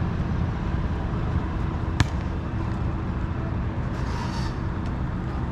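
Steady low rumble of wind buffeting the microphone, with a single sharp thud of a soccer ball being struck about two seconds in and a brief soft swish around four seconds.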